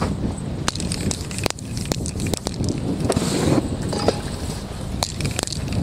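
Wet spray paint on a canvas catching fire, with a brief hissing whoosh about three seconds in. Scattered sharp clicks and knocks sound over a steady low rumble.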